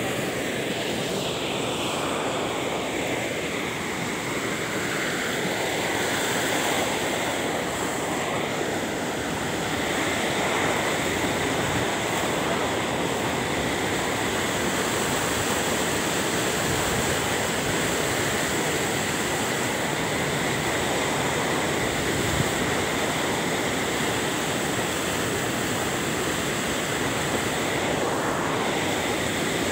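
Muddy floodwater rushing steadily over a low concrete weir and churning into whitewater below, with one brief knock about three-quarters of the way through.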